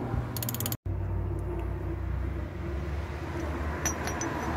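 Socket ratchet giving a quick run of clicks as it works the valve spring compressor on a Ford CVH cylinder head. It is followed by a steady low rumble and a few light metal clinks near the end as the tool is handled.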